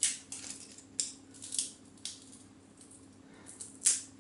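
Garlic cloves being peeled with a ceramic knife: several short, sharp scrapes and crackles of the papery skin, spaced irregularly, the loudest near the end, over a faint low steady hum.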